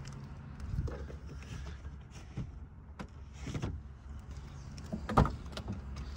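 Handling noises in a minivan's cabin: scattered rustling and a few short knocks, the loudest a sharp thump about five seconds in.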